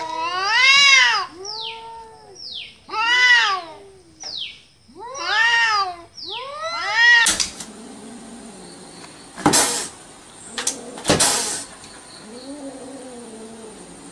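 Cat caterwauling: a run of loud, wavering yowls that rise and fall in pitch, with quick high squeals in between. About seven seconds in the calls stop abruptly. A quieter stretch follows with a few short noisy bursts and one faint low yowl near the end.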